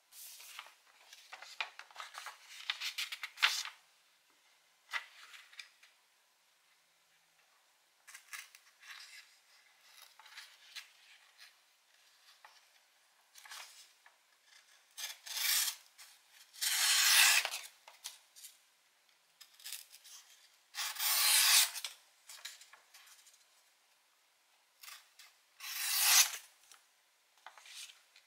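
Sanrenmu 7063 folding knife slicing through sheets of paper: a handful of separate cutting strokes, each about a second long, with quieter paper rustling and handling clicks between them.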